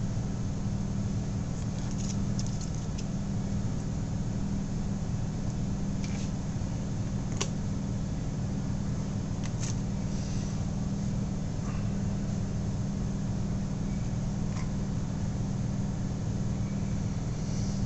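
Steady low hum, with a few faint short clicks scattered through it.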